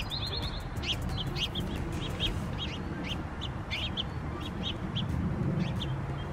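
Small songbirds chirping repeatedly, short high chirps several times a second with a quick trill near the start, over a low steady rumble.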